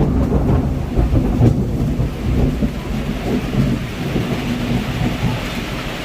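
Heavy rain pouring down while a low rumble of thunder rolls on and slowly fades away.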